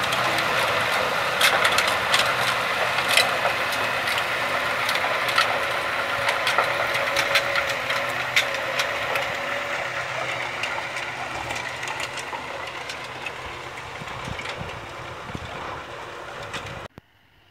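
Tractor engine running while the rear of a trailed manure spreader flings out cattle manure, a dense rattling clatter full of sharp cracks. It fades slowly as the rig pulls away, then cuts off suddenly near the end.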